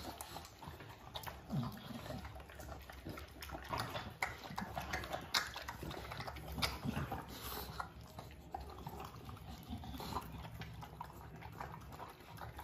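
Two American Bully dogs eating wet food from bowls: irregular wet lapping, smacking and chewing with scattered clicks.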